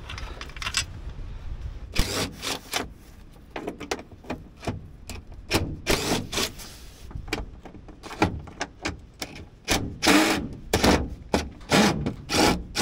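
Irregular scraping, rubbing and clunking as an old Ford truck's plastic dashboard is taken apart, with parts handled and worked loose alongside a cordless drill.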